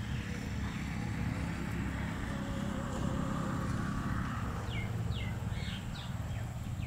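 Steady low outdoor rumble. About five seconds in, a small bird gives four short chirps, each falling in pitch.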